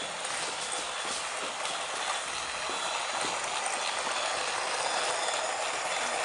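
Battery-powered toy train running on its plastic track: a steady whirring with faint irregular clicks from the wheels and track.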